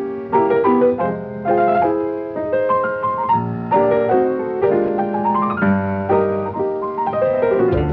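Cartoon score music led by piano, playing quick runs of notes, with a climbing run about two-thirds of the way in.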